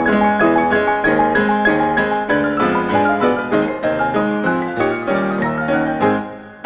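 Grand piano music in a classical style: a steady stream of quick notes that fades away near the end.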